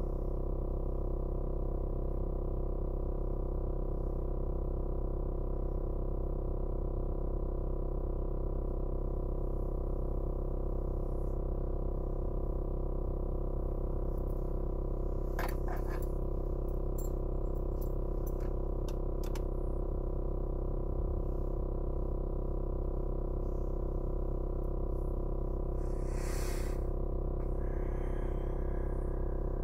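Background music: a steady, sustained synthesizer drone that holds without change. A few faint clicks come about halfway through, and a brief rustle comes near the end.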